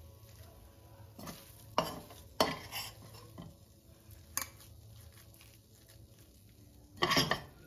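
Metal spoon scraping and knocking against a non-stick wok and a serving bowl as thick carrot halwa is spooned from pan to bowl: a few separate clinks in the first half, and a louder clatter near the end.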